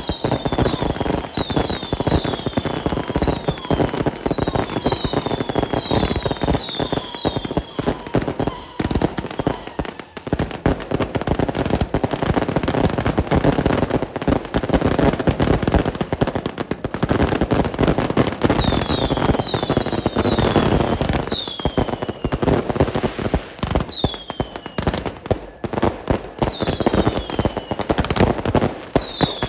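Fireworks and firecrackers going off in a dense, continuous crackle of bangs, with many short falling whistles from whistling fireworks in quick runs, mostly in the first third and again near the end.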